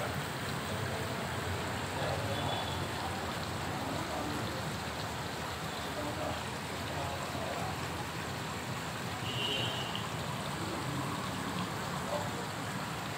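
Steady rush of running water in a koi pond, with faint voices in the background.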